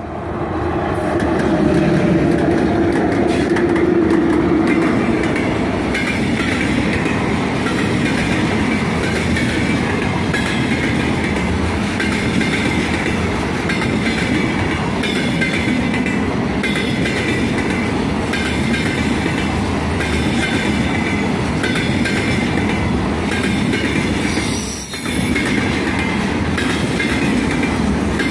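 A 3ES5K "Ermak" three-section electric locomotive passes close by, its sound swelling over the first two seconds with a low droning tone. Then a long freight train of container flat wagons rolls past, a steady wheel-on-rail rumble with rattling, and a short dip in the noise near the end.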